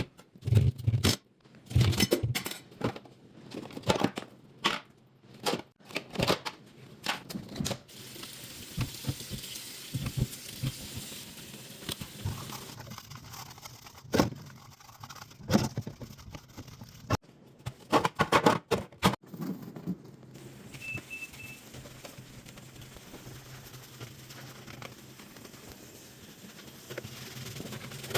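Refrigerator-cleaning handling noise: irregular knocks, clatters and crinkles as items, shelves and packaging are moved. The knocks are thickest in the first several seconds and again about two-thirds through, with a steady hiss between them. Three quick short beeps come about three-quarters through.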